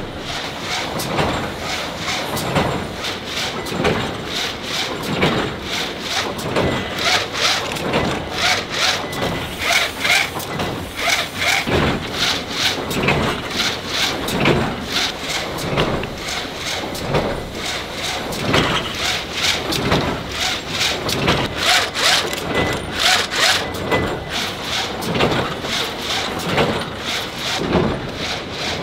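Artificial-grass tufting machine running, making a steady repeating mechanical rhythm of strokes with rubbing and squeaking.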